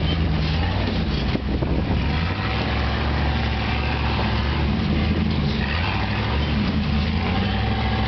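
Rock-racing buggy engine revving up and down as it crawls over boulders, pitch rising and falling every second or so, over a steady low drone from a helicopter overhead.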